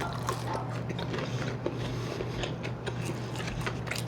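Close-miked chewing and mouth sounds of someone eating fried fast food: many small, irregular clicks and smacks over a steady low hum.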